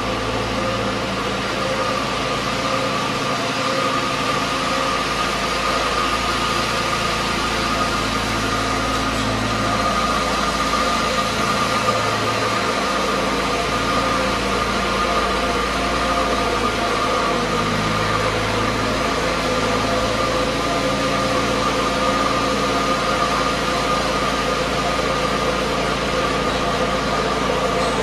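A machine's engine running steadily under a constant hiss, with a steady high whine and a low engine note that shifts in pitch now and then.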